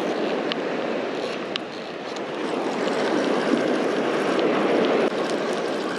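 Steady rush of wind on the microphone mixed with breaking surf, growing a little louder about halfway through, with a few faint clicks.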